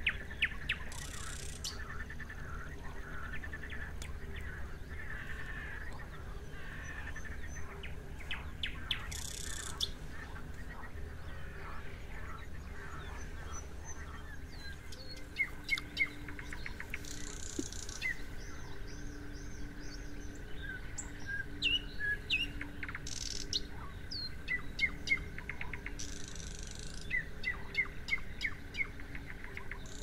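Nightingale singing among other birds: rapid repeated notes, clicks and whistled phrases, with a steady thin tone joining from about halfway.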